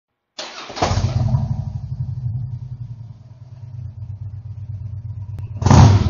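A Harley-Davidson V-twin motorcycle engine starts about half a second in and catches, then idles with a lumpy, pulsing beat. Near the end it gives one sharp rev that dies away.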